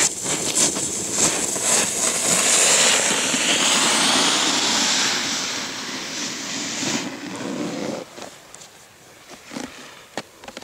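A snowboard sliding and scraping over packed snow, a loud hissing rush. It builds, holds for several seconds, and cuts off about seven to eight seconds in.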